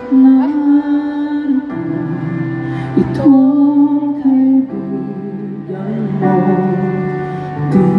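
A male singer singing a slow ballad live into a microphone through the PA, holding long notes over an instrumental backing.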